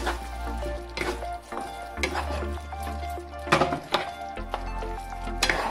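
A spatula stirring thick, simmering cream gravy in a nonstick frying pan, with several scraping strokes against the pan, over background music.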